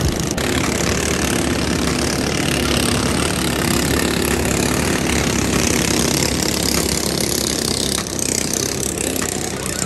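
Motorboat engine running steadily, with a wash of water and wind noise over it.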